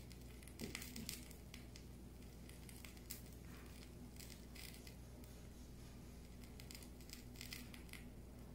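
Faint soft rustles and light taps of lettuce leaves and tomato slices being laid by hand on a burger patty on a plate, over a steady low hum.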